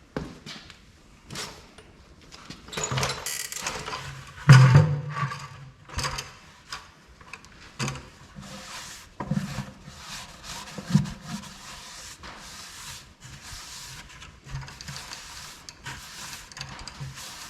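Working noises from handling gear and buckets: scattered knocks, clunks and scraping, with one heavier thump about four and a half seconds in.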